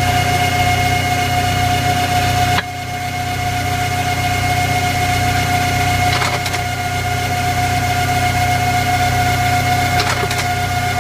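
Screw machine (automatic lathe) running steadily as it turns pins from bright round steel bar, with a steady whine over a low hum. The sound drops suddenly about two and a half seconds in and slowly builds back, and there are brief clicks about six and ten seconds in.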